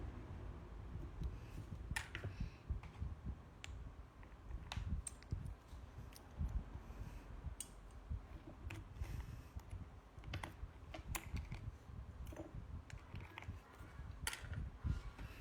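Typing on a mechanical keyboard: irregular key clicks, now in quick runs, now spaced out, over a low steady rumble.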